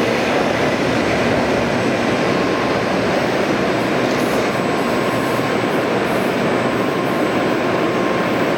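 Shinkansen train running, a loud, steady rushing noise with a faint high whine.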